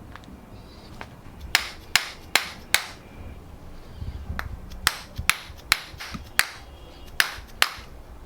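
A run of sharp knocks or slaps, about two or three a second, in groups: four, a pause, five, then two more.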